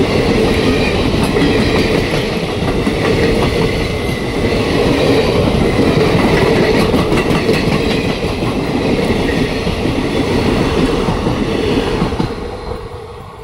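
ICF passenger coaches of an express train rolling past at speed, their steel wheels clattering over the rail joints in a steady rumble. The sound fades away near the end as the last coach goes by.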